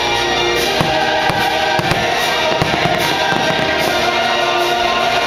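Show music with held chords playing, and firework bursts popping and crackling through it from about a second in until just past the middle.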